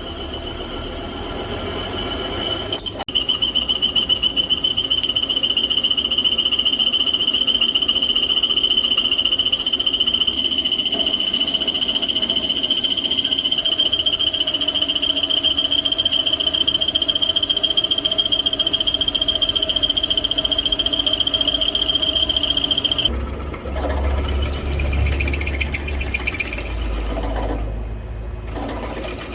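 1978 Buffalo pedestal drill press with a 1 HP motor running, with a loud, steady, high-pitched squeal. The squeal drops to a lower pitch about three seconds in and cuts off a few seconds before the end, leaving a lower rumble.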